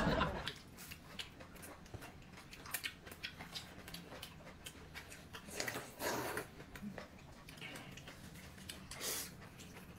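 Quiet meal sounds: faint clicks and taps of chopsticks against bowls, with soft rustling, and two short, slightly louder sounds about six and nine seconds in.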